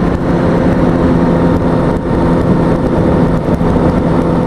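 A 2003 Kawasaki ZX-6R's inline-four engine running at a steady cruising speed, its pitch holding level, under rushing wind noise on the helmet-mounted microphone.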